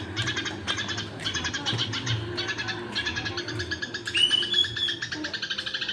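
Eurasian tree sparrows chattering in a fast, even run of short harsh chirps, the agitated calls of fighting sparrows, mixed with grey-cheeked bulbul song. A single clear whistled note stands out about four seconds in.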